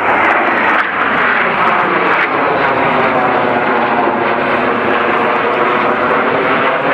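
A close formation of six Canadair NF-5 fighters passing overhead, the loud, steady rush of their J85 turbojets with a slowly shifting, phasing tone.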